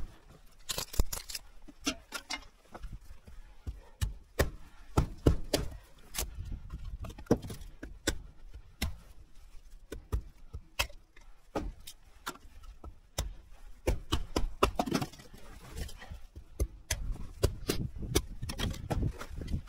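Hatchet splitting kindling on a wooden chopping block: irregular sharp knocks as the blade strikes and the sticks split, coming quicker in clusters near the end.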